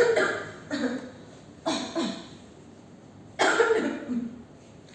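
A woman coughing: four coughs spread over about four seconds, with a longer gap before the last one.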